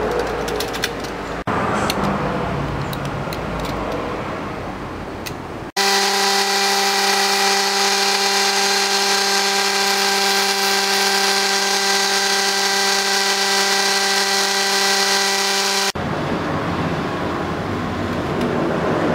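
Scratchy rubbing noise with light clicks from hand-working a small corn-cob ring. Then, after a sudden cut, a small electric motor runs at one unchanging pitch for about ten seconds, and it cuts off sharply back to scratchy noise near the end.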